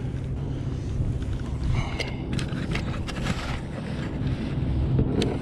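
Steady low rumble of wind buffeting the microphone, with a few light water splashes as a striped bass is held in the river alongside a boat to revive it.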